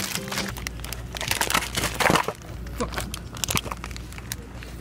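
Plastic sweet bags crinkling as they are handled and pushed along a shelf, densest and loudest about two seconds in, then a few scattered light clicks.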